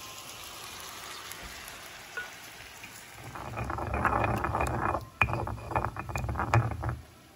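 Stone pestle grinding garlic and whole spices in a volcanic-stone molcajete. After a faint steady hiss, a rough grinding scrape starts about three seconds in, then breaks into a run of quick scraping, knocking strokes.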